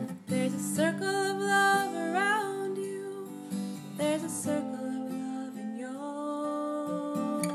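A song on strummed acoustic guitar with a sung melody whose notes slide and are held between chords.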